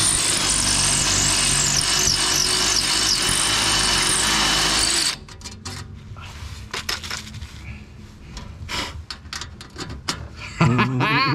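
Power drill running for about five seconds to enlarge a misaligned rivet hole for an aluminium catalytic converter shield, its whine rising and falling as the bit cuts. It then stops, followed by scattered light clicks and knocks.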